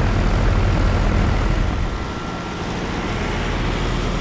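2007 Trane XB13 4-ton heat pump outdoor unit running in cool mode: steady condenser fan noise over a low compressor hum, with a faint high whine. The sound dips a little about two seconds in.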